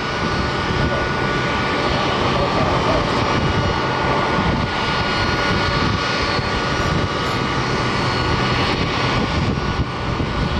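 Boeing 757's jet engines running: a steady rush of engine noise with a thin, steady high whine over it.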